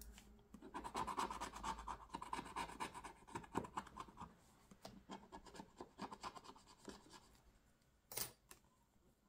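Scratch-off field of a paper savings card being scratched away with a small scratching tool: quick, rapid scraping strokes for about seven seconds, then a single short knock near the end.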